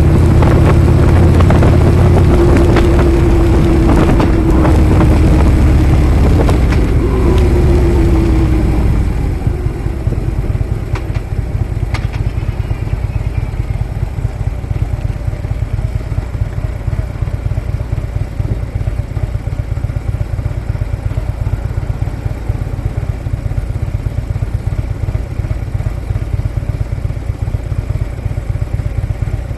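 Harley-Davidson motorcycle's V-twin engine running on the move, its note falling as the bike slows about seven seconds in, then settling into a steady low, pulsing idle.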